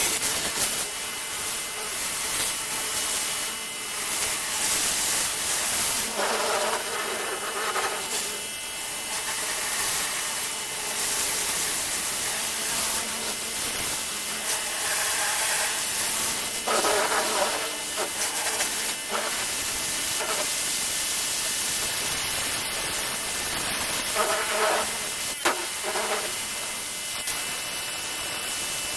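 Pressure washer spraying a high-pressure jet of water onto a surface, a steady hiss throughout.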